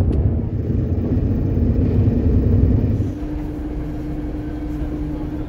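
Low rumble of a bus. About three seconds in it drops quieter and a steady hum takes over.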